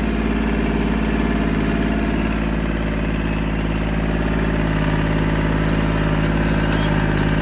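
Tractor engine running steadily, its note rising a little about halfway through, with a few faint cracks near the end.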